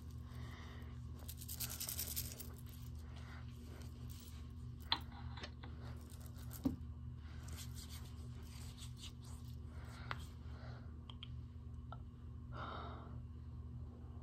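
Rustling and scraping right at a phone's microphone as the phone is handled close up, with a louder scratchy stretch about two seconds in and two sharp clicks around five and six and a half seconds in, over a steady low hum.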